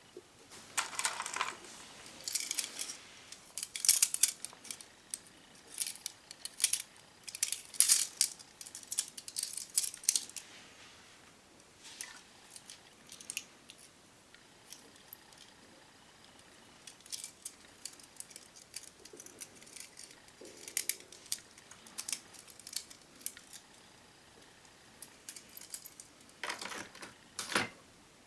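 Small metal lighter parts and hand tools being handled: light clicks, clinks and short scrapes in irregular bursts, busiest in the first ten seconds, then sparser, with a longer scrape near the end.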